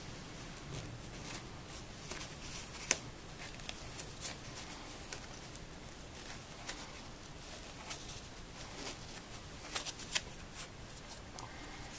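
Scissors slowly snipping through a quilted nylon coat, with irregular crisp clicks and the crackling rustle of the nylon shell and lining; one sharp snip about three seconds in and a few more near the end.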